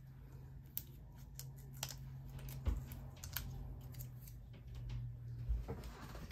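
Scattered soft clicks and light crackles of small paper handling: mini dimensionals (foam adhesive dots) being peeled from their backing sheet and pressed onto a small punched cardstock piece.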